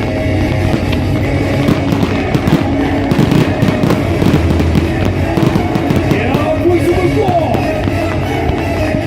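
Fireworks bursting and crackling in quick succession over loud music.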